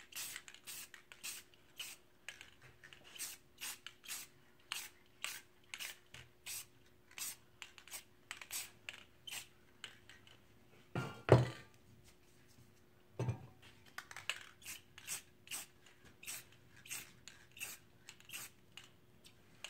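Aerosol spray paint can sprayed in short hissing bursts, about two a second, pausing about halfway for a loud knock and then a softer one before the bursts resume.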